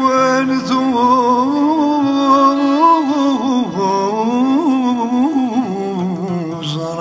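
Kabyle popular music: a single ornamented melodic line that slides and wavers, over a steady low accompaniment.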